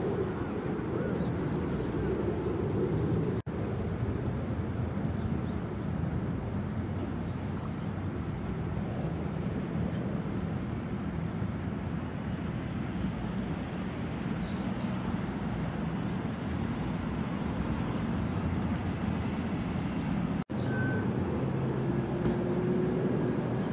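Lowered custom cars rolling slowly past one after another: a steady, low engine and exhaust sound with tyre noise. The recording cuts off abruptly twice.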